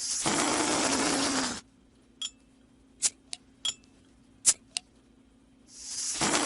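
Sound effects: a burst of hissing noise about a second and a half long, then a string of about seven sharp clicks, then another burst of hissing near the end.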